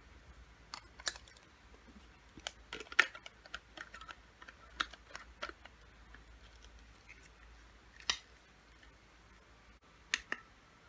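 Scattered small clicks and taps of a lightstick and its packaging being handled, the sharpest about a second in, three seconds in, eight seconds in and a quick pair near the end.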